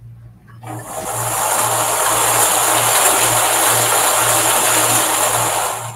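Lottery balls tumbling and clattering inside a clear hand-cranked lottery drum as it is turned, a dense steady rattle that starts just under a second in and stops just before the end.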